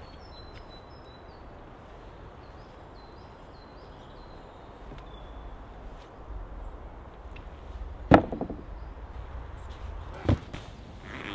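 Wooden plank door of a log hut opening with a sharp clunk and a short rattle, then heavy boot steps thudding down wooden steps, over faint birdsong.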